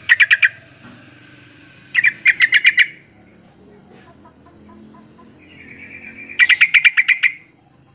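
Yellow-vented bulbul singing three bursts of rapid repeated notes: a short phrase at the start, a longer one about two seconds in, and the longest near the end, led in by a softer chatter.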